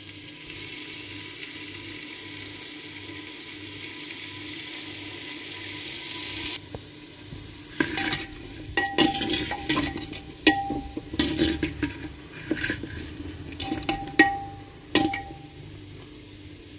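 Turnip cubes sizzling in hot mustard oil in a pot, a steady hiss that grows and then cuts off suddenly about six and a half seconds in. A steel ladle then stirs and knocks against the pot in a run of scrapes and clanks, some with a short metallic ring.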